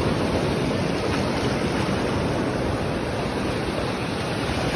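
Steady rush of ocean surf washing up the beach in the shallows.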